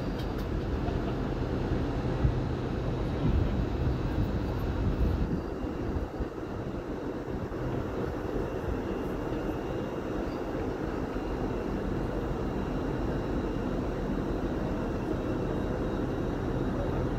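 CrossCountry Voyager diesel multiple unit pulling away, its underfloor diesel engines giving a steady low drone that eases slightly about six seconds in.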